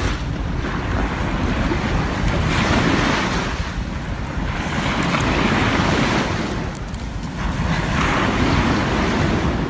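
Wind buffeting the microphone over surf washing on a beach, the waves swelling and fading every few seconds.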